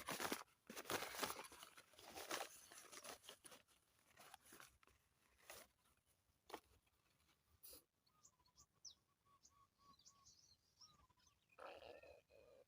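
Irregular rustling and crackling for the first several seconds, then faint, short chirps of small birds.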